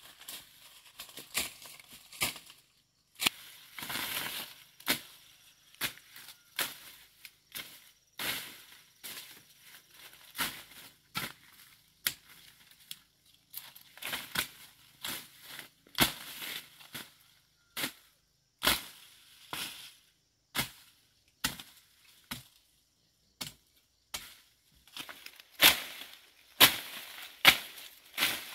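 Long-handled brush-clearing blade chopping and slashing through undergrowth and cane-like stems: sharp irregular cracks about once a second, with swishing and rustling of cut leaves between. The strikes are loudest near the end.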